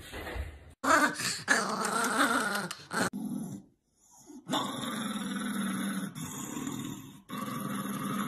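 A small dog growling and snarling, then after a short break a small white terrier growling steadily in two long stretches.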